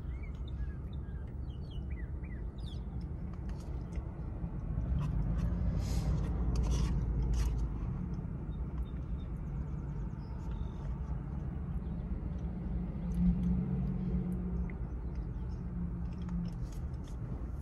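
A steady low vehicle rumble, louder about five to eight seconds in, with scattered light clicks and scrapes of a spoon in an oatmeal cup as it is eaten from.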